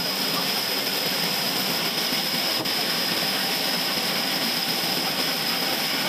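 Band sawmill running steadily: a constant loud hiss of machinery with a steady high-pitched whine over it.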